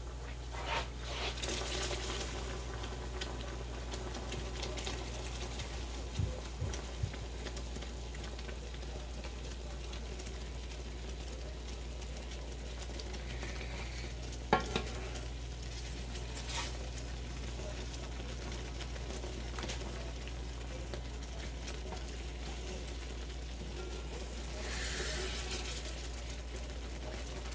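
Roux, thinned with a little oil and broth, sizzling steadily in the pan as it is stirred, with a few sharp knocks of the utensil against the pan, the loudest about halfway through, and a brief swell of sizzling near the end.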